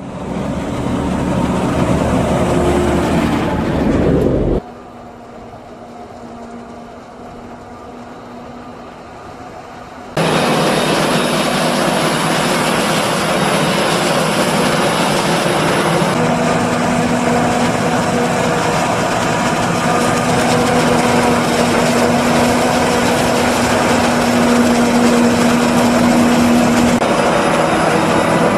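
Heavy farm machinery at work. A John Deere tractor pulling a forage wagon runs loudly at first. After a quieter stretch of engine sound, the Claas Jaguar 950 self-propelled forage harvester is heard chopping corn: a steady engine drone with a high whine over it.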